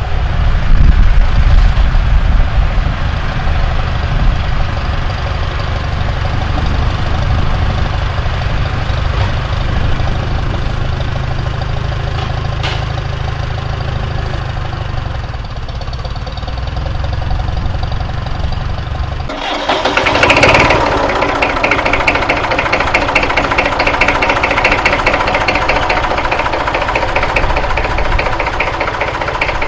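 Vintage tractor engine running with a deep rumble. About two-thirds of the way through, the sound cuts to a different engine, louder and higher, with a fast, even beat.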